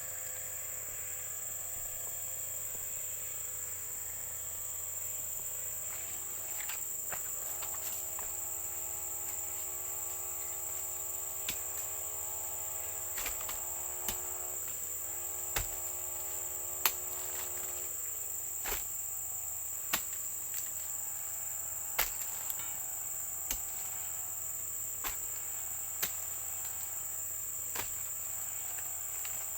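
Steady high-pitched drone of insects, crickets or cicadas. A pitched hum rises in from about seven seconds in and fades out about eleven seconds later, and scattered sharp knocks sound through the second half.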